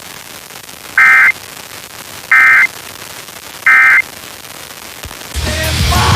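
Emergency Alert System end-of-message (EOM) data signal: three short identical bursts of warbling two-tone digital code, about a second and a half apart, marking the end of the test alert. Rock music starts near the end.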